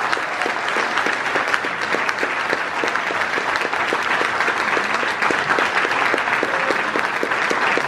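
Audience applauding, a dense steady clapping that doesn't let up.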